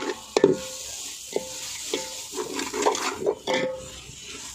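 A metal slotted spoon stirring frying masala in a large hammered aluminium pot: repeated scrapes and knocks against the pot, each leaving the metal ringing briefly, over the sizzle of the masala frying.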